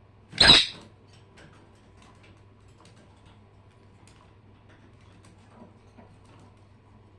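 Pet birds in their cage: a brief, loud, harsh burst about half a second in, then faint scattered scratching and clicking over a steady low hum.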